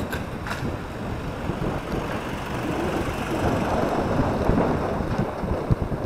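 Wind buffeting the microphone of a camera mounted on a moving recumbent bicycle, a loud, steady rumble with road noise that swells somewhat in the middle.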